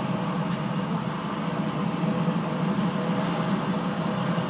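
Leonardo AW169 helicopter's turbine engines running during start-up, with the main rotor turning: a steady low hum with a few held tones above it. Heard from indoors through glass.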